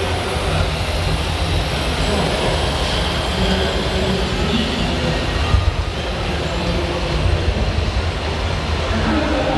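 Steady background noise of a busy exhibition hall: indistinct crowd voices over a constant low hum.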